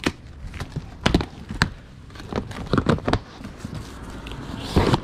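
Scattered knocks, taps and rustles of a plastic storage tote sealed with packing tape and cardboard boxes being picked up and handled.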